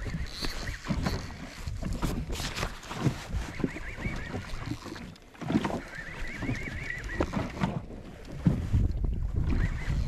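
Wind buffeting the microphone and water slapping against a jet ski's hull, with scattered knocks, while a spinning reel is wound in against a fish. A thin wavering whine comes twice, about four seconds in and again about six seconds in.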